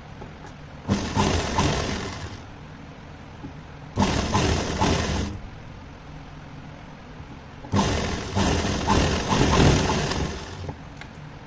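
Electric motor-driven sewing machine stitching in three runs, the first two short and the last about three seconds long, each a fast clattering rattle that starts and stops abruptly.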